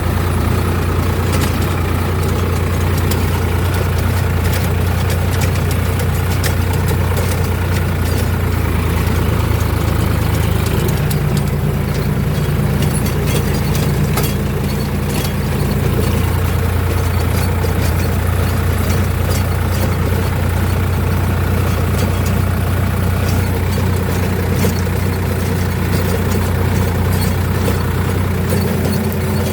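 Sonalika RX 47 Sikandar tractor's diesel engine running steadily while pulling a rotavator through soil. The engine note shifts for a few seconds around the middle, and faint scattered clicks run over it.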